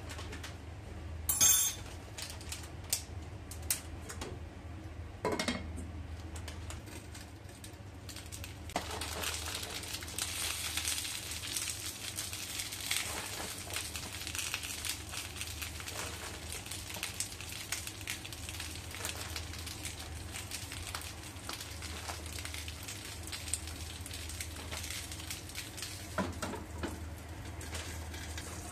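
Food frying in a frying pan, a crackling sizzle that sets in about nine seconds in and keeps on, with a few sharp clinks and knocks of utensils against the pan early on. A steady low hum runs underneath.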